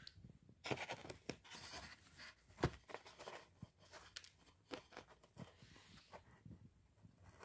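Close handling noises: irregular scraping and crackling with scattered clicks, one sharp click about two and a half seconds in.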